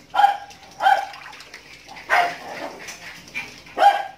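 A dog barking, four short sharp barks spread unevenly over a few seconds.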